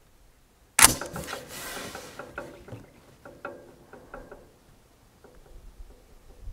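The action of an S.A.F. Lithgow single-shot 7.62 NATO target rifle being worked to load the next round: a sharp metallic clack about a second in as it closes, then a few light clicks and knocks as the rifle is handled and settled into the shoulder.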